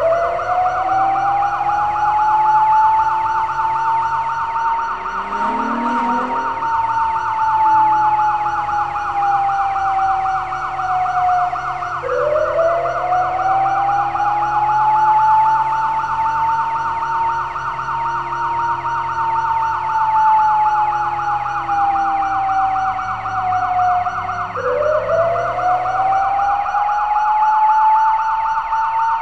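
Police car sirens: a slow wail that climbs quickly and sinks slowly, starting over about every twelve seconds, layered with a fast warbling yelp. A low steady hum runs beneath, and a short rising sweep comes about six seconds in.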